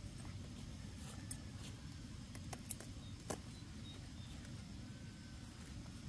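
Scissors snipping through a young pumpkin's stem: a few short, sharp clicks, the two loudest near the middle, over a steady low background rumble.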